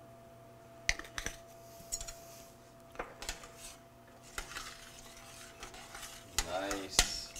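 A spoon stirring thick puréed butternut squash soup in a stainless steel saucepan, with scattered clinks and scrapes of the spoon against the pot.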